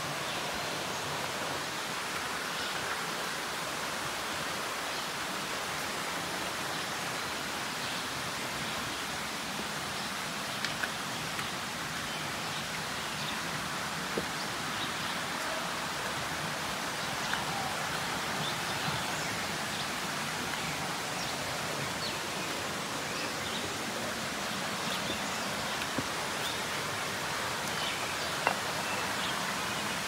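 Steady rush of falling water from a pair of jungle waterfalls, an even hiss with no rhythm. A few faint clicks are scattered through it.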